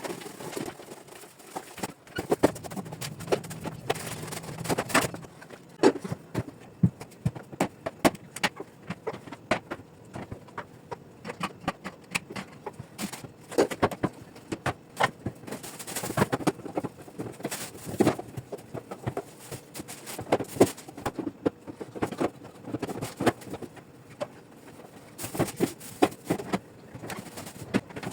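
Irregular clatter and knocks of dishes and kitchenware being handled and set down.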